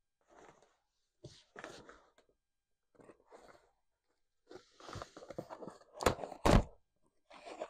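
Cardboard box flaps being pulled and folded open by hand: scraping and rustling of cardboard in short bursts, with two loud knocks about six seconds in, half a second apart.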